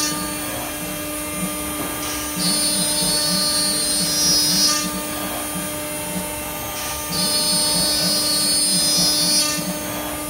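CNC router spindle running at high speed, its bit cutting into an MDF board: a steady high whine with the noise of the cut, growing louder twice for a couple of seconds each.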